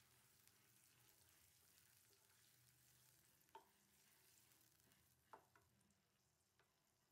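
Faint sizzling of sliced onions and spice paste frying in oil in a stainless steel kadai, stirred with a wooden spatula that knocks against the pan a few times. The sizzle eases off near the end.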